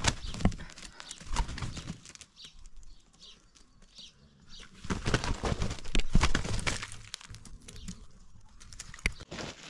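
Two roosters fighting: bursts of wing flapping and scuffling in dry dirt, a short flurry at the start and a longer, louder one about five seconds in.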